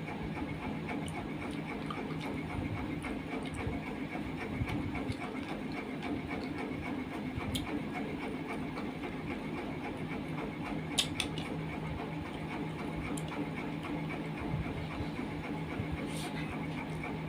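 Steady droning hum in the background, with soft sounds of eating rice and curry by hand: chewing and a few short clicks and smacks, the clearest about 11 seconds in.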